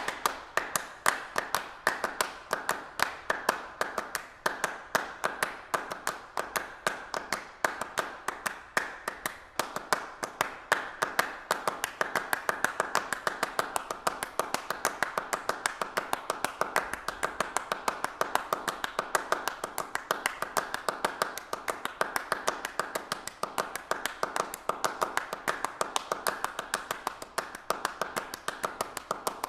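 Dense, rapid tapping and clicking, many sharp clicks a second with louder taps a few times a second, going on without a break.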